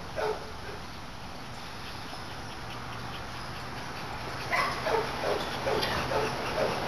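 Dogs barking in short, quick barks while playing: a bark or two at the start, then a rapid run of barks, about three a second, from about four and a half seconds in.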